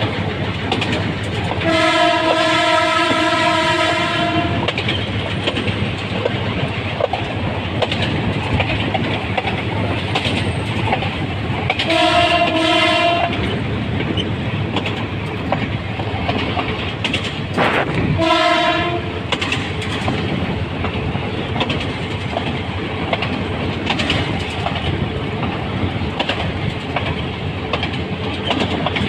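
Locomotive horn sounded three times on one note: a long blast of about three seconds near the start, a shorter one about ten seconds later, and a brief one some five seconds after that. Between and under the blasts, the steady rumble and clatter of the locomotive running along the track.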